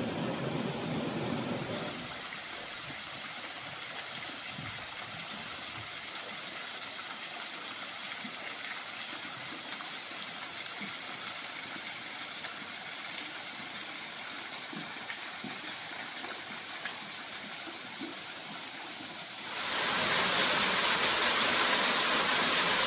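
Steady rush of flowing mountain stream water, with a low rumble that drops away about two seconds in. Near the end it jumps suddenly much louder to the splash of a small waterfall pouring into a rock pool.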